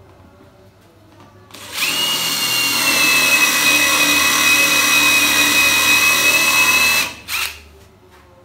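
DeWalt cordless impact driver boring into a bengkirai hardwood board, running steadily at full speed for about five seconds with a high whine, then a second short burst.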